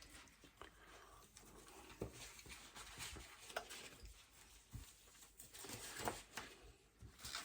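Faint, irregular clicks, taps and scraping from small tools and phone parts being handled during an iPhone 12 Pro Max front-glass repair.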